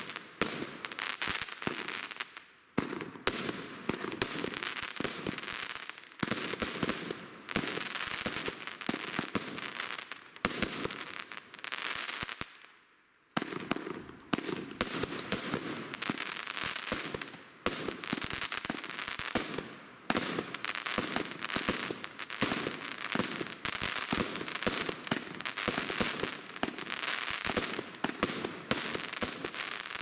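Evolution Snowstorm 2.0 compound fireworks cake firing shot after shot: bursts followed by dense crackling, in waves every few seconds, with a brief lull about thirteen seconds in.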